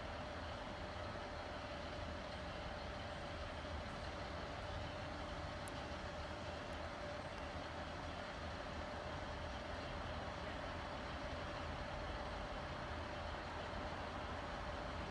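Class 155 Super Sprinter diesel multiple unit idling at the platform: a steady engine hum with a constant tone over a low rumble.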